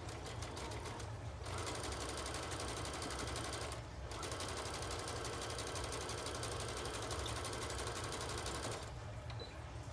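Brother sewing machine stitching fabric: a few slow stitches, then running fast and steady, with a brief stop about four seconds in, and stopping shortly before the end.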